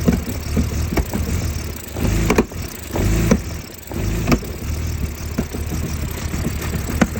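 BMW E46 325Ci's 2.5-litre straight-six idling roughly, its rumble swelling and sagging unevenly, with sharp irregular pops that the owner hears from the intake manifold.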